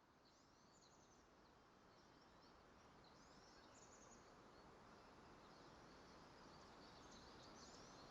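Faint outdoor nature ambience growing slowly louder: a soft steady hiss with many quick, high chirps scattered throughout.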